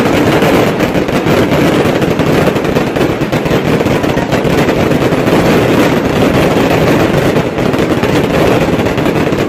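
Ground-level firework fountain firing at close range: a loud, unbroken rush of dense crackling with many small cracks.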